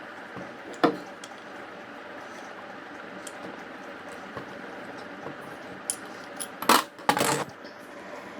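Meat grinder running with a steady hum. There is a sharp metallic clink about a second in and a loud clatter of metal on metal near the end.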